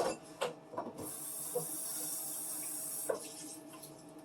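Kitchen tap running in a steady hiss for about two seconds as plastic chopping mats are rinsed, with a few sharp plastic clacks before it starts and another as it stops.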